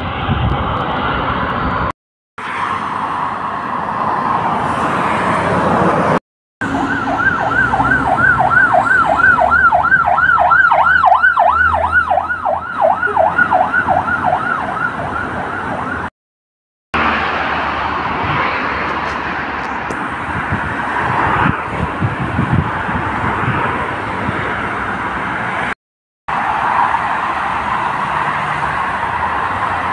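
Police car siren in fast yelp mode, rising and falling about three times a second for roughly ten seconds, among stretches of steady vehicle and street noise broken by brief dropouts to silence.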